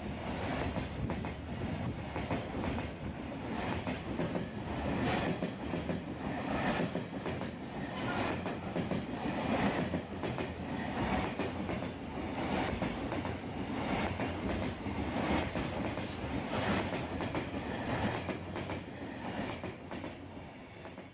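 Freight train wagons rolling past on jointed track, wheels clicking over the rail joints in a steady clatter over a running rumble. The sound fades away near the end.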